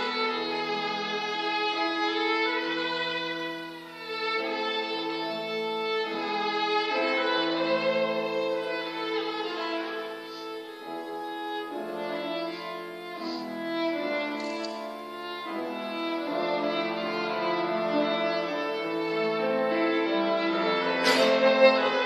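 Violin, piano and accordion trio playing live, the violin carrying a melody over held chords. A sharp accent sounds about a second before the end.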